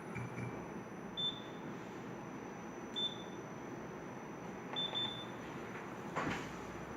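Short, high electronic beeps: one about a second in, another about three seconds in, then two in quick succession near five seconds. They sit over a steady hiss with a faint high whine, and a brief sharp click-like burst comes near the end.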